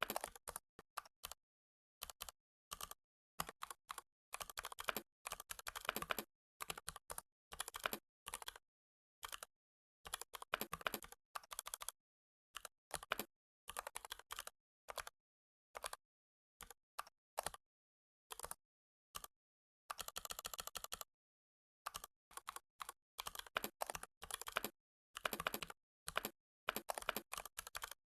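Computer keyboard typing: runs of quick keystrokes with short pauses between, the gaps dropping to dead silence.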